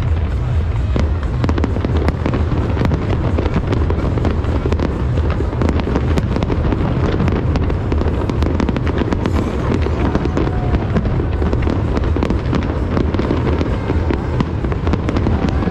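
Fireworks display going off without pause: dense crackling and rapid bangs over a constant low booming.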